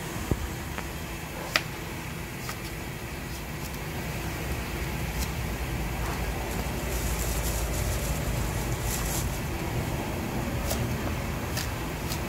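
A cleaver knocking on a wooden chopping block as sweet potato is sliced: occasional sharp knocks, the two loudest in the first two seconds. Behind them runs a steady low background rumble.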